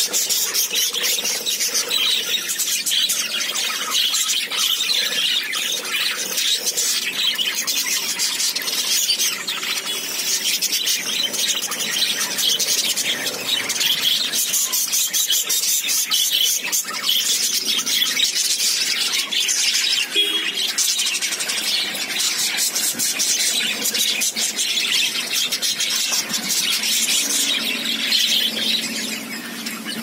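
A flock of budgerigars chattering and screeching continuously, a dense high-pitched warble of many overlapping calls, falling a little quieter just before the end.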